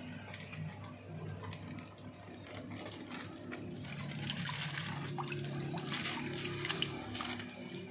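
Water splashing and trickling as a plastic bag of catfish fry is tipped out into a shallow tarpaulin pond, with more small splashes from about three seconds in.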